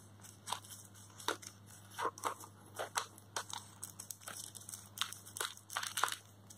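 Clear plastic bag crinkling and crackling in short irregular bursts as it is handled and opened by hand.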